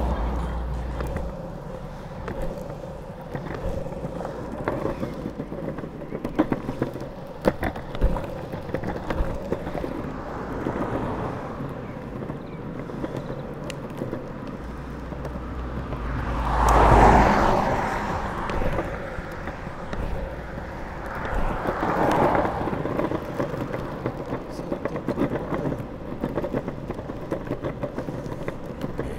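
Pantheon Trip drop-through longboard rolling on asphalt: a steady wheel rumble with scattered clicks and knocks as the wheels cross joins and cracks. A passing vehicle swells up and fades away about 17 seconds in, and a smaller one passes around 22 seconds.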